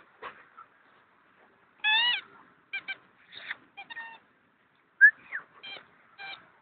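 A run of about nine short, high-pitched squeaks, irregularly spaced, with one longer wavering squeal about two seconds in and a falling one about five seconds in, as a Weimaraner plays with a small ball: either the dog whining or the toy squeaking.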